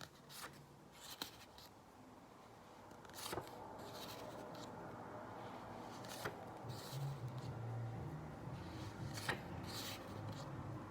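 Faint rustles and soft flicks of paper word cards being handled and flipped, a short stroke every second or two, over quiet room tone with a faint low hum joining about halfway through.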